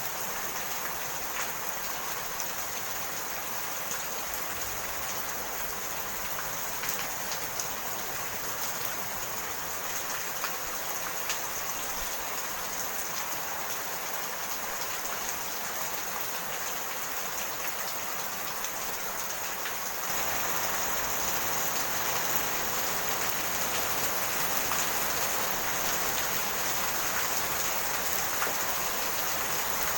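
Steady rain falling, with individual drops ticking through the hiss. It gets a little louder about two-thirds of the way through.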